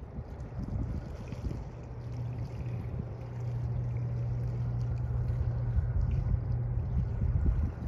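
Low, steady engine drone of a passing bulk carrier carrying across the water, strongest in the second half, with wind rumbling on the microphone.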